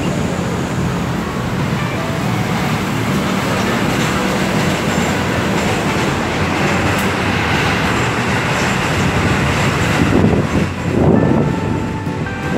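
Steady rumble and whir of an electric city bus standing at the stop, mixed with traffic noise, growing briefly louder about ten seconds in.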